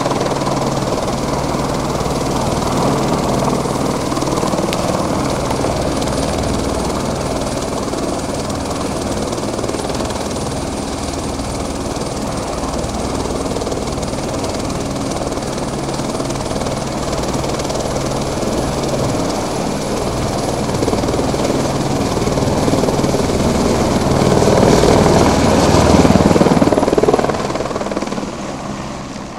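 Eurocopter AS350 B3 Écureuil helicopter hovering close by with its steady rotor and turbine noise while refilling its water bucket at a tank. It grows louder towards the end, then falls away quickly.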